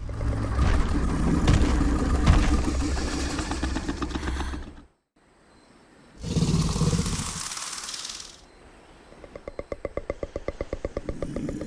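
Scorpios Rex creature sound effect, built from an Indominus rex scream, pig sounds and alligator bellows: a deep rumbling growl with a rattly edge for about five seconds, then after a short break a harsh hiss of about two seconds, then a fast clicking rattle near the end.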